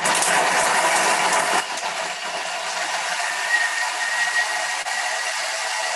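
Countertop kitchen robot's blender motor running at speed 5.5, blades chopping peeled orange and ice cubes for a smoothie. It is a steady, loud whirr with a rattle, louder for the first second and a half, then settling a little lower.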